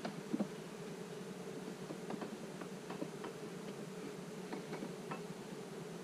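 Honeybees from a newly installed package buzzing in a steady hum, with light clicks and taps scattered through.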